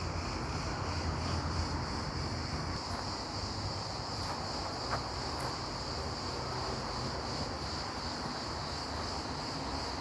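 Steady, continuous high-pitched chorus of insects, over a low rumble, with a faint click about five seconds in.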